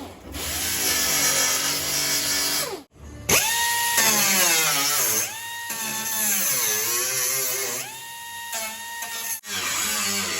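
A handheld power tool motor whining up to a steady high speed, holding, then winding down, twice, with lower varying motor running in between and abrupt cuts.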